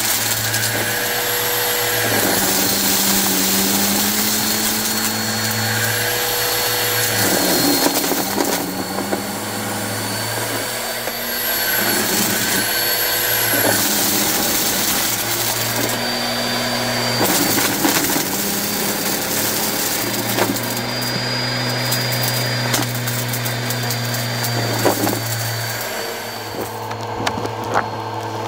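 Bissell Purple Helix upright vacuum running, its motor pitch shifting up and down every few seconds as the head works over a pile of craft debris, with scattered crackles and clicks of debris being sucked up.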